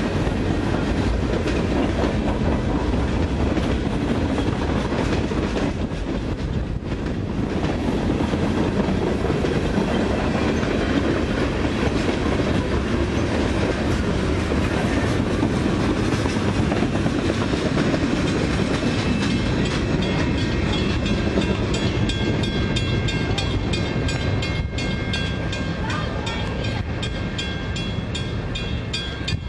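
Freight cars rolling past on steel wheels: a steady, loud rumble of a long mixed freight train passing close by.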